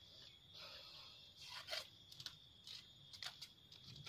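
Faint scraping and tearing as a knife strips the husk sheaths off a freshly cut bamboo shoot, in several short strokes.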